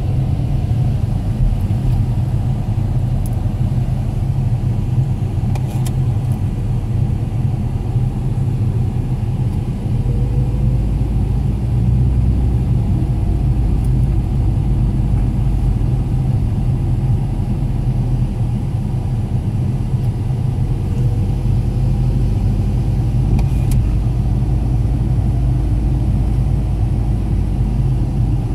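Steady road and engine rumble of a moving car, heard from inside the cabin.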